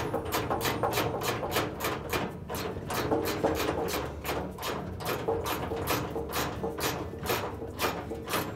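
Socket ratchet with a 3/8-inch socket and extension clicking rapidly, about four to five clicks a second, as a bolt is run in.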